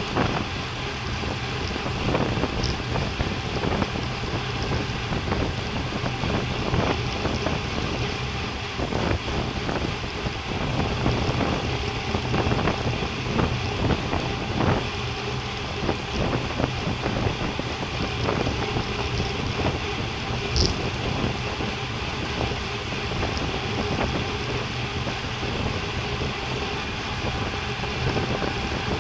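Steady rush of wind over a bike-mounted camera's microphone at about 45 km/h, with road-bike tyre noise on the tarmac. One brief sharp click about two-thirds of the way through.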